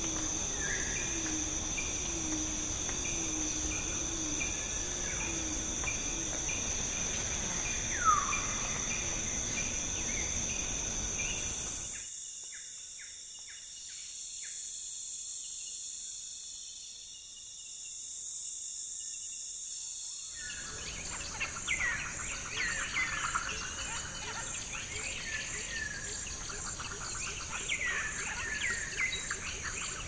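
Congo Basin rainforest ambience: a steady high-pitched insect chorus with scattered bird calls, including a repeated low note in the first few seconds and a falling whistle about eight seconds in. About twelve seconds in it cuts to a quieter stretch of only high insect tones, then about twenty seconds in to a busier mix of fast insect trills and many short falling bird calls.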